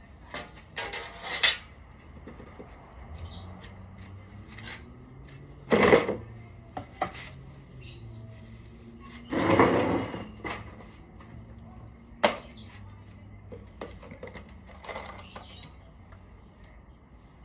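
Wood and tools being handled: scattered knocks and clicks, with two louder scraping bursts, one about six seconds in and a longer one near ten seconds, and a sharp knock a little after.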